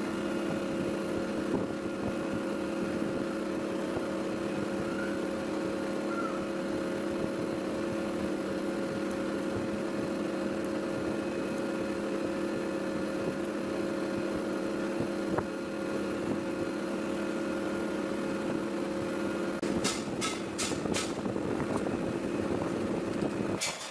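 A small electric motor running at a steady speed with a constant hum, then stopping just before the end, with a few sharp clicks shortly before.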